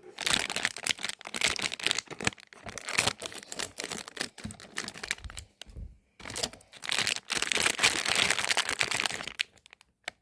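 Crinkly packaging being crumpled and torn open by hand. It makes a dense crackle with a short pause about six seconds in, and stops just before the end.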